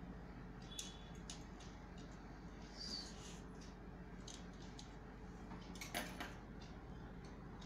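Low steady room hum with scattered faint clicks as fingers press and shape soft dough on a brass plate, and a short clinking rattle of bangles about six seconds in.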